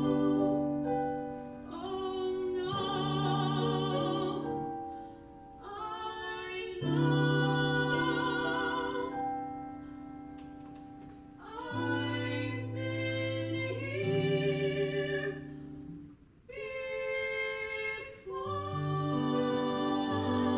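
Female voices singing a musical theatre song in long held phrases with vibrato, over piano accompaniment, with short breaks between phrases.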